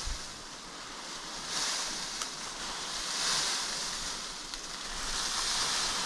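Wind blowing in gusts, rising and easing every second or two, with low wind rumble on the microphone in the second half.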